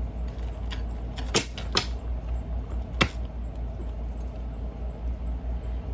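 A few separate sharp clicks and light taps, the sharpest about three seconds in, over a steady low hum.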